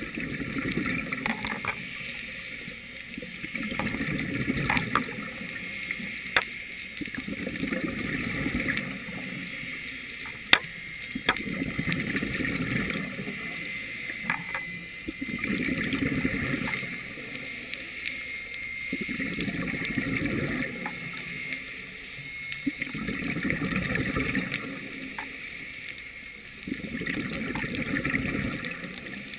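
A scuba diver's regulator breathing underwater, recorded by a GoPro: a gush of exhaled bubbles about every four seconds. Scattered sharp clicks come in between, the loudest about ten seconds in.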